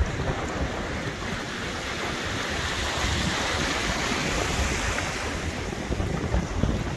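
Small ocean waves washing up onto a sandy beach, a steady wash of surf, with wind buffeting the microphone.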